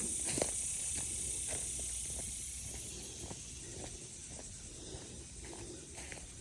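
Insects droning in a steady high hiss outdoors, fading about halfway through, with a few faint clicks and rustles.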